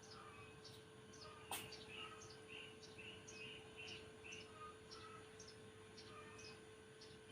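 Faint chirping: a short high chirp repeating about twice a second, with softer lower calls between, over a steady low hum. A single sharp click sounds about one and a half seconds in.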